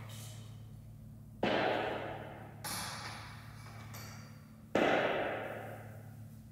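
Three sudden heavy thuds, each dying away over a second or so, over a steady low hum.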